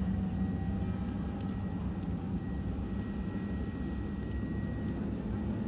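Steady low drone of a passing motor yacht's MTU diesel engines, with a faint steady high whine over it.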